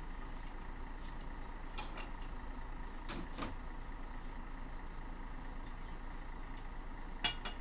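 Light knocks and clicks of kitchenware being picked up and handled, the loudest near the end, over a steady background hum, with a few brief high chirps in between.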